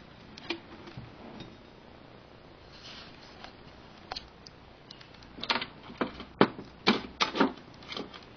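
Irregular clicks and light knocks of handling, a few scattered at first, then coming thick and fast over the last three seconds.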